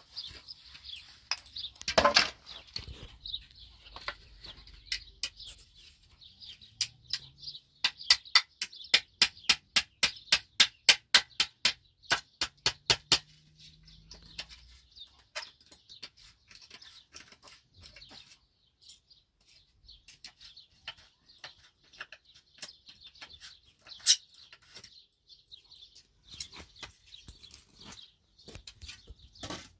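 Hammering on wooden boards: a quick, even run of about twenty sharp strikes, roughly four a second, lasting about five seconds, with a few single knocks before and after. Birds chirp steadily in the background.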